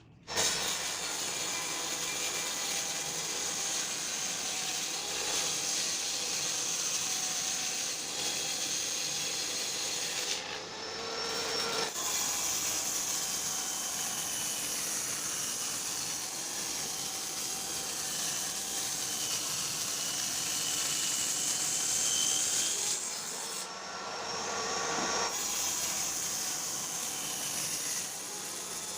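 Electric power saw cutting wood, running steadily with a faint whine over the cutting noise, changing briefly twice.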